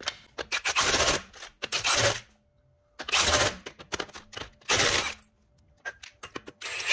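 Wheel's lug nuts being snugged down with a wrench: several short bursts of rapid metallic clicking, with single clicks in between.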